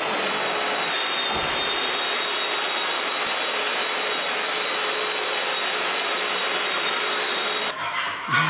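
An electric renovation power tool running steadily with a high-pitched whine, stopping shortly before the end, followed by a few scraping sounds.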